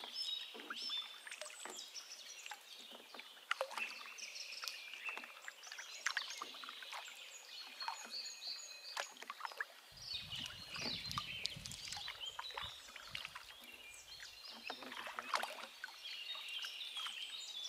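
Canoe being paddled: repeated paddle strokes knocking and splashing, with birds singing throughout. A low rumble joins about ten seconds in.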